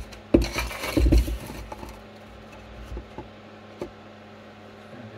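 Plywood board being handled and set down on a workbench: a few knocks in the first second and a half, then a couple of light taps. Under them runs the steady hum of the extractor's mains-powered 120 mm fan.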